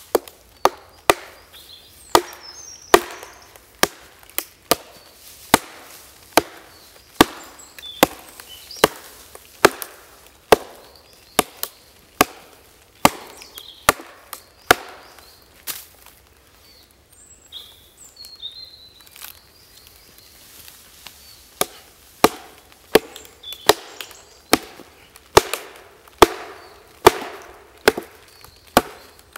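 Hatchet chopping into a log, cutting a row of notches: sharp wooden chops about one to two a second, thinning out for a few seconds past the middle before picking up again.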